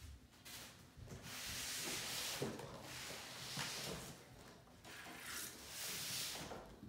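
Cardboard box being handled: rubbing and scraping of cardboard that rises and falls in several swells.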